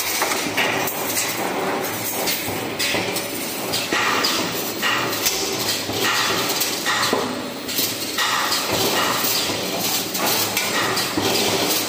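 Automatic wire bending and butt welding machine running: pneumatic cylinders hiss and metal parts clank in short bursts, about one a second.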